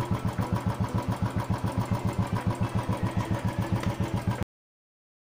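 Royal Enfield Bullet Classic 350's single-cylinder four-stroke engine idling with an even, low thump of about seven to eight beats a second. It cuts off abruptly about four and a half seconds in.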